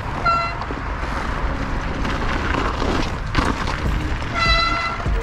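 Wind and rolling noise of a mountain bike being ridden, picked up by a helmet-mounted camera, with two short, high-pitched toots: one just after the start and one about four and a half seconds in.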